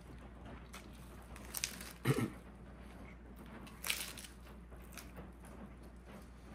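Mouth-close eating of a lettuce-wrapped burger: chewing, with a few short crisp crunches of lettuce leaves, the loudest about two seconds in and another about four seconds in.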